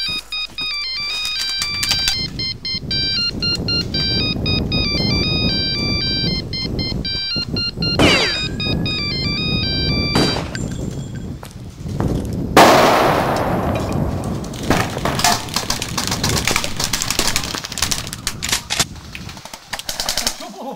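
A ringtone-like electronic melody of stepping beeps plays over a noisy rumble for the first ten seconds, with a falling whistle around eight seconds in. About twelve and a half seconds in comes a sudden loud blast, followed by rapid cracks of airsoft gunfire that run on to near the end.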